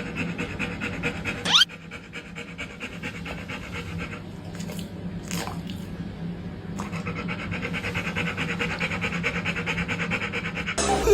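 A dog panting quickly and steadily, easing off for a few seconds in the middle before picking up again, with a short rising squeak about a second and a half in.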